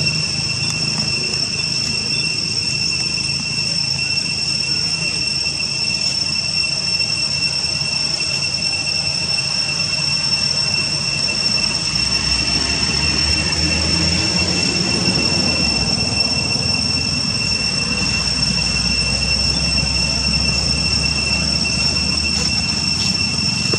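Cicadas droning: a steady high-pitched whine with a second, higher tone above it, over a low rumble that strengthens about halfway through.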